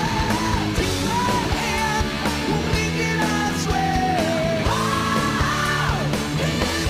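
Music: a rock song with a singing voice over a full band with drums.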